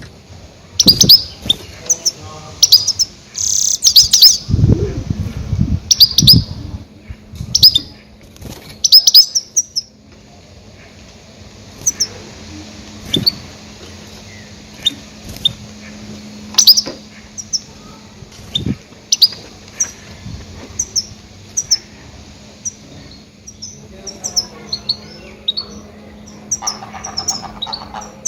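Goldfinch calls: many short, sharp, high chirps, dense at first, sparser through the middle and busier again near the end. A few dull low thumps come about five seconds in, and a faint steady low hum sits underneath from about ten seconds on.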